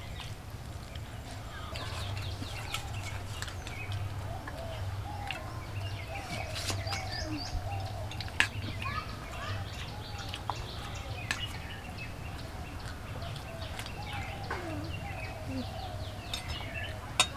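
Domestic chickens clucking on and off, with a few sharp clinks of a spoon against steel dishes.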